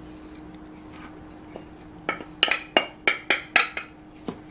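Wooden spatula knocking and scraping against a ceramic bowl as flour is emptied out of it: quiet at first, then about seven sharp taps in quick succession in the second half, and one more near the end. A faint steady hum runs underneath.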